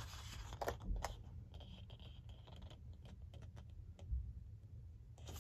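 Faint light clicks and rustles of a sheet of scrapbook paper being handled in the hands.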